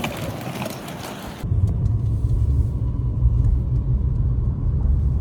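A steady, loud low rumble that starts abruptly about a second and a half in, after a stretch of even hissing noise.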